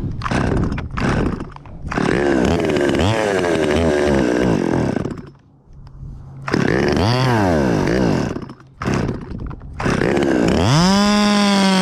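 Top-handle chainsaw started and revved in short stretches, rising and falling in pitch, dying twice and being restarted. The saw won't keep running properly, which the climber hopes is just a bad spark plug.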